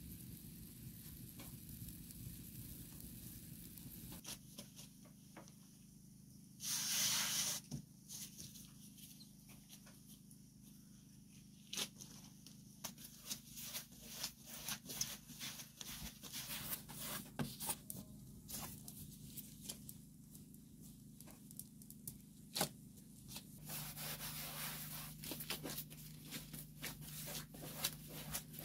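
Gloved hands kneading and shaping bread dough on a floured wooden board: soft, irregular pats, slaps and rubbing. A brief loud rushing noise comes about seven seconds in.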